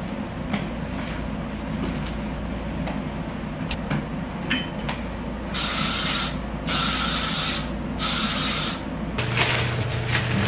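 Three hissing sprays, each about a second long with short gaps between them, from a spray bottle or can, about halfway through. Near the end a clear plastic bag crinkles as it is handled.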